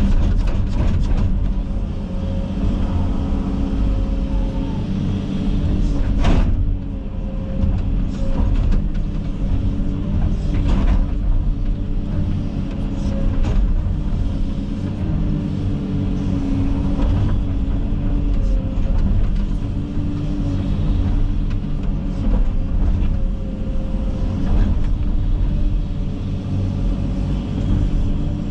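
Komatsu 360 excavator working: its diesel engine runs steadily under load while the hydraulic whine rises and falls with the arm movements. A few sharp cracks stand out, the loudest about six seconds in.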